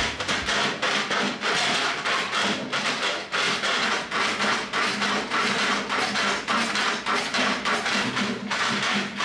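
Metal hand plane shaving a wooden pole in quick, regular strokes, about two a second, each a short rasping swish as a shaving peels off.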